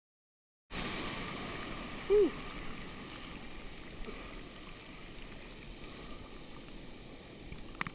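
Rushing whitewater of a broken wave foaming around a sea kayak as it is carried along, starting abruptly under a second in and slowly easing. A short pitched yelp cuts through about two seconds in, the loudest moment.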